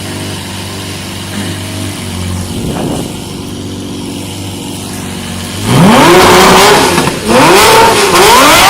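Lamborghini Murciélago LP640's stock V12 idling, with a brief blip of the throttle about a third of the way in. It is then revved hard several times near the end, much louder, the pitch climbing and falling with each rev.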